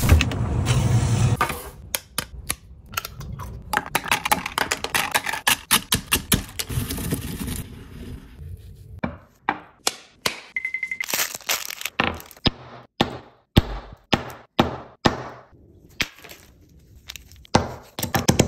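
A run of sharp cracks and knocks, several a second at times. Near the end, a stone pestle pounds hard candy pieces in a stone mortar.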